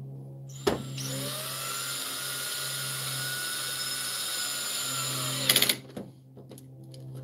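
Cordless drill/driver on its lowest clutch setting driving a screw into a TV's plastic back cover: a click, then the motor spins up and runs steadily for about five seconds, ending in a quick burst of loud clicks as the clutch slips on the seated screw before the motor stops.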